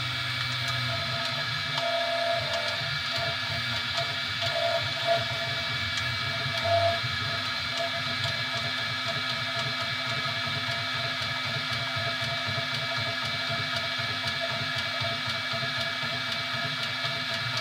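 3D printer running: a steady whir with a busy, shifting low buzz from its motors, and a few brief higher tones in the first seven seconds.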